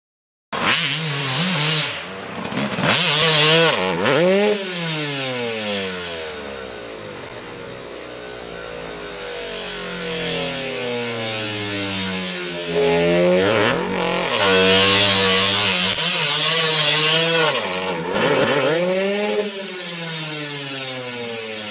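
Dirt bike engines revving on a motocross track, starting about half a second in, their pitch rising and falling again and again as the throttle opens and closes.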